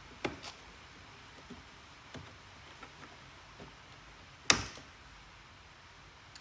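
Plastic trim tool prying at a Porsche 981 Boxster dashboard trim strip: a few faint clicks, then one sharp snap about four and a half seconds in as the strip's retaining clips pop out of the dash.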